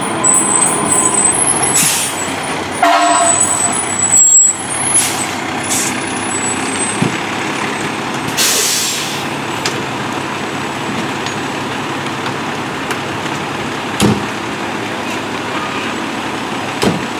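Fire engine's diesel running as it pulls in and stops, with air brakes hissing about two seconds in and again near the middle, and a short horn toot about three seconds in. Two sharp pops near the end.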